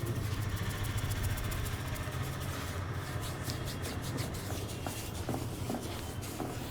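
Hands working over a head during a head massage: quick crackling clicks of fingers and palms on scalp and hair, dense at first and thinning out after about three seconds, over a steady low hum.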